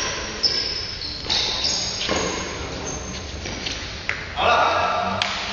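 Badminton rally in an echoing sports hall: rackets striking the shuttlecock in sharp cracks every second or so, with shoe soles squeaking on the court floor. A voice calls out a little after four seconds in.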